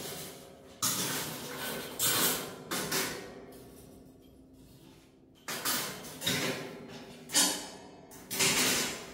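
Stainless steel skewers clattering and scraping against each other and the stainless steel grill frame as they are handled and set in place. It comes as a run of separate metallic clinks and rattles, quieter for a stretch in the middle.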